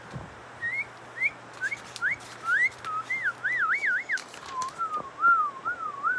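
A person whistling idly: a run of short upward swoops, then a wavering up-and-down warble that drops a little lower about two-thirds of the way through. A few clicks and rustles of handling come in between.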